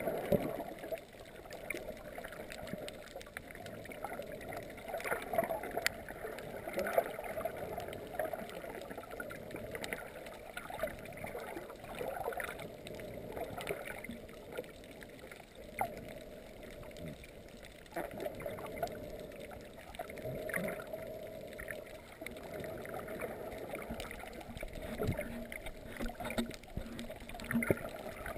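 Muffled underwater water noise, an uneven dull rushing with scattered sharp clicks and pops.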